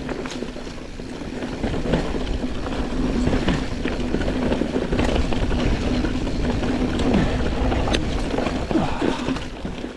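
Giant Trance full-suspension mountain bike descending a dirt trail: tyres rolling over dirt, rocks and leaf litter, with frequent rattles and knocks from the bike over bumps under a steady hum.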